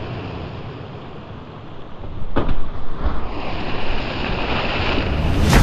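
Sea surf washing against rocks, with wind buffeting the microphone, heavier from about three seconds in. A short knock about two and a half seconds in.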